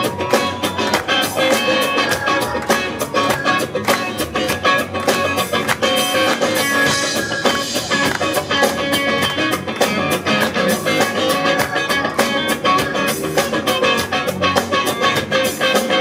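Live rock band playing: electric and acoustic guitars strumming over a drum kit keeping a steady beat.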